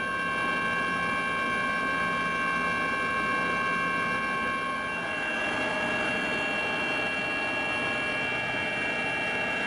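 Steady engine noise: an even rushing with several high, steady whining tones, whose pitches shift about halfway through.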